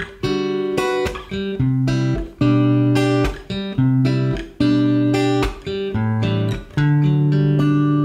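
Background music: a guitar strumming a run of chords, the last one, struck near the end, left ringing.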